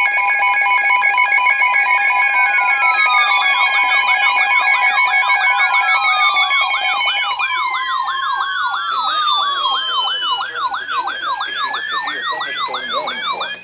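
Layered electronic alarm and siren tones. A set of steady, pulsing beep tones runs through the first half. Several siren tones at different pitches sweep downward and settle into a fast warble, rising and falling about two to three times a second, and one tone glides upward near the end.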